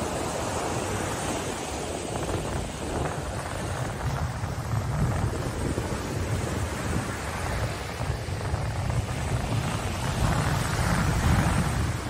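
Gulf of Mexico surf breaking and washing up over sand, a continuous rush of foamy water that swells a little near the end. Wind rumbles on the microphone.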